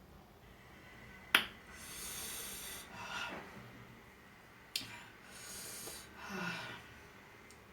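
Two sharp clicks of a small spoon against a dish, each followed by a long, heavy breath through the mouth, from someone whose mouth is still burning from chilli.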